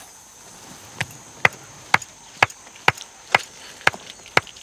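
Sharp knocks by hand at a steady pace of about two a second, starting about a second in, made to warn off a young elephant coming close to the vehicle.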